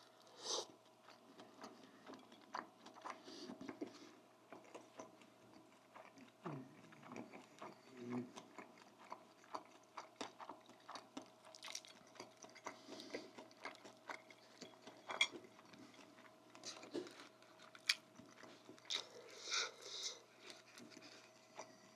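Close-miked eating: irregular chewing, lip smacks and crunchy bites of fried chicken, with a faint steady hum underneath.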